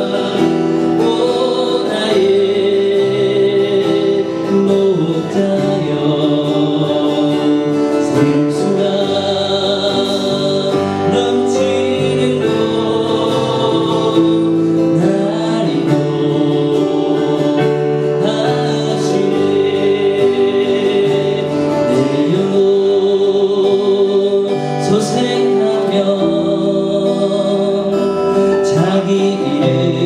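Man singing a gospel worship song with vibrato on held notes, accompanying himself on a strummed acoustic guitar through the church sound system.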